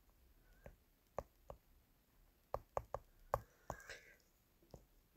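Stylus tapping and clicking on a phone touchscreen while handwriting: about nine faint, sharp taps at an uneven pace, bunched most closely between two and four seconds in.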